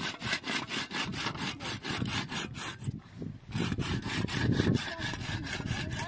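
Rapid, even rasping strokes, about five a second, that break off briefly about three seconds in and then resume.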